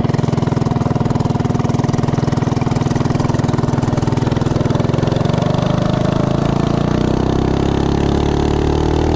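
Predator 212 Hemi single-cylinder engine on a minibike, fitted with a Tillotson 212 cam, header pipe and the governor removed, running hard under riding load. Its pitch climbs slowly from about five seconds in as the bike speeds up.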